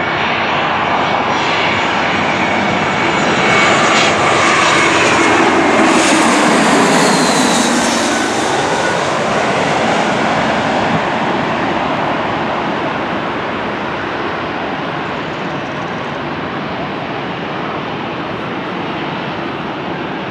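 Airbus A321-200 twin-turbofan jetliner on landing approach, passing close overhead. The engine noise swells, drops in pitch as it goes by about six seconds in, then fades as it flies away.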